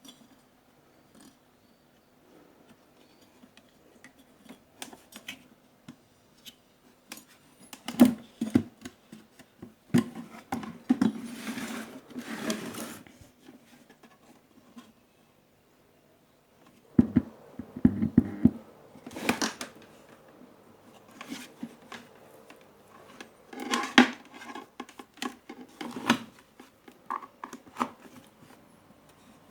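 Small tools and parts being handled and set down: scattered clicks, taps and clatter, with several louder bouts of knocking and rustling.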